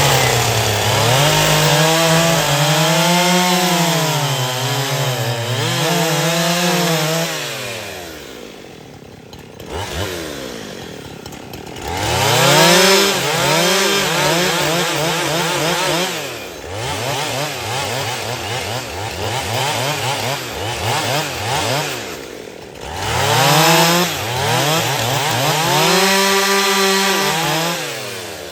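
Husqvarna 372XP two-stroke chainsaw held at full throttle in three long bursts, its pitch wavering as it cuts into wood, dropping back toward idle between bursts.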